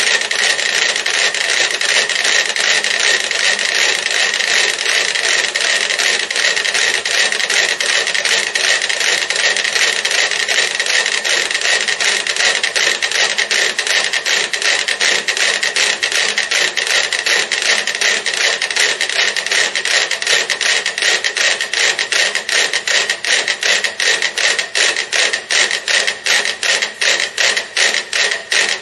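About thirty small mechanical pendulum metronomes ticking together on a shared board. At first they make a dense, blurred clatter of out-of-step ticks. Over the last several seconds the ticks fall into an even shared beat as the metronomes synchronise.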